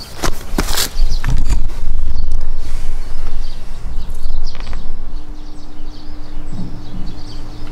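Outdoor ambience with a loud low rumble and a few sharp clicks in the first second; a faint steady hum comes in about two-thirds of the way through.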